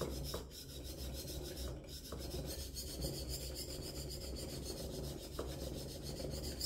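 A Victorinox steel knife blade stroked back and forth on a coconut-oiled natural Black Shark whetstone, a steady gritty scraping from a fairly abrasive stone. The blade has been turned over to grind the second side after the burr formed.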